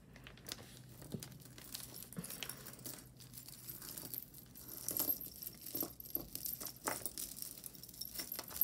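Costume jewelry being handled: metal necklace chains and beads clinking and jingling in a string of small, irregular clicks.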